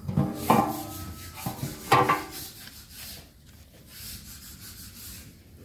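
Bare, paint-stripped steel body pieces from a 1981 Toyota FJ40 being handled, scraping against one another. They knock together with a ringing clank about half a second in and again about two seconds in, then fainter rubbing follows.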